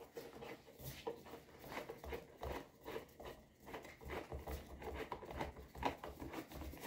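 A plastic futon leg being screwed by hand into the frame's underside: a run of irregular small scrapes and clicks as it turns on its threaded bolt and rubs against the fabric dust cover.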